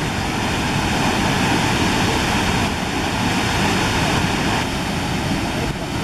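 Waterfall water rushing in a steady, unbroken noise.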